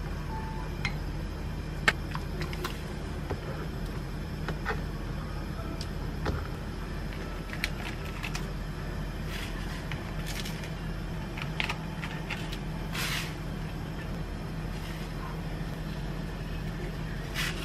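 Cooking at a gas stove: scattered light clicks, taps and scrapes of a wooden spoon and ingredients going into a pot, over a steady low hum.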